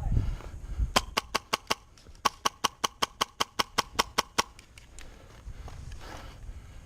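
Airsoft gun firing two quick strings of single shots, about five a second: five shots, a short pause, then about eleven more, each a sharp crack.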